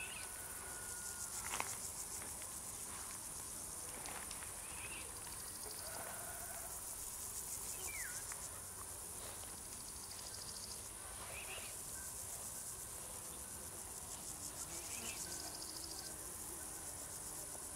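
Crickets singing in a chorus: a continuous high-pitched, finely pulsing trill that swells and eases now and then, with a few faint short lower chirps scattered through it.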